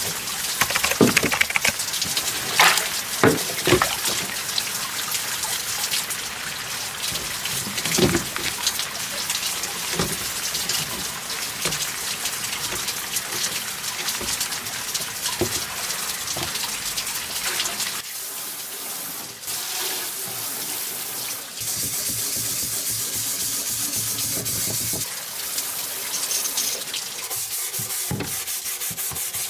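Water running from a tap while a rusty steel ammunition box is rinsed and scrubbed, with occasional knocks of metal.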